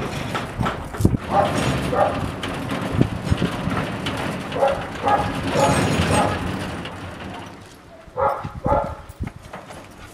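Black-and-tan guard dog on a lead barking aggressively: about eight short, sharp barks in three bursts, the last pair near the end.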